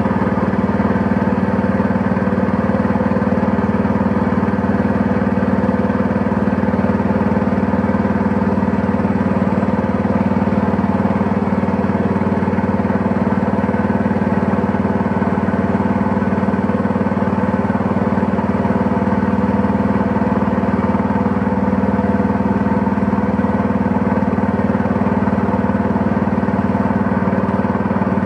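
Engine of a small wooden boat running steadily at one unchanging speed.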